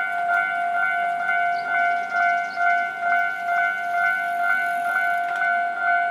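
Electronic warning bell of a Japanese railway level crossing ringing: a steady, pitched clang repeated about twice a second, the signal that a train is approaching and the barriers are down.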